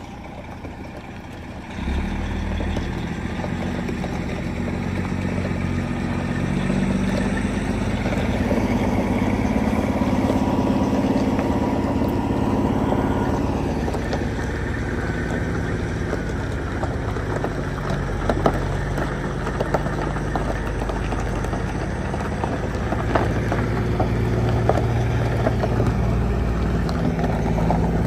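Diesel semi truck engine running as the rig pulls a step-deck trailer slowly past. It gets suddenly louder about two seconds in, and its pitch rises and falls as the throttle changes, with a few light knocks and rattles later.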